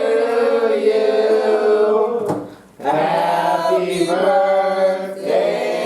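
Voices singing long, drawn-out notes together, with a short break about two and a half seconds in.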